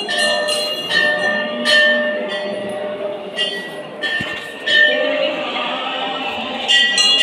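Metal temple bells struck repeatedly at uneven intervals, each strike ringing on with a bright, sustained tone, over a murmur of people.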